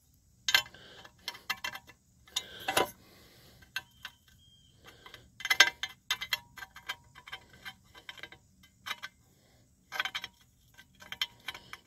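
Irregular clicks and light metallic clinks, a few of them ringing briefly. They come from a steel lawn-tractor steering bracket being handled while a rubber bushing is pushed into its hole by hand.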